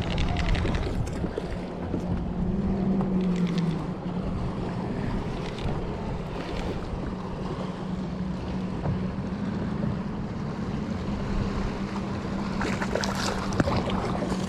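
A boat motor's steady low hum over wind and water noise, with a few short knocks and clicks near the end.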